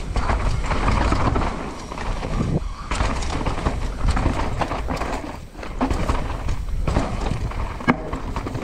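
Downhill mountain bike clattering over rough trail: irregular knocks and rattles from the tyres, chain and suspension hitting roots and rocks, over a steady low rumble.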